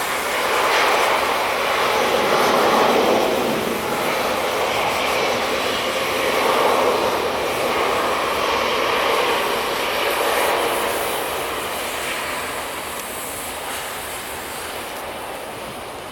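Jet airliner's engines at takeoff thrust, a loud broad rushing noise that is strongest in the first few seconds and fades steadily through the second half as the aircraft moves away.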